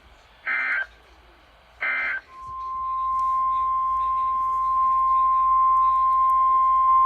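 The last two of three short, identical electronic data bursts of an Emergency Alert System end-of-message code, about a second and a half apart. About two seconds in, a single steady high tone fades in and holds: the 1050 Hz warning alert tone that opens the next weather alert.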